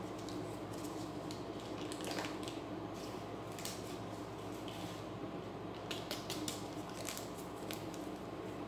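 A small packet being handled and opened, with scattered crinkles, rustles and snips, over a steady low hum.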